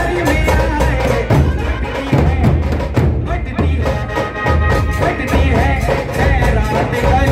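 A man sings a devotional song through a microphone, his voice wavering in melody, over heavy drum beats.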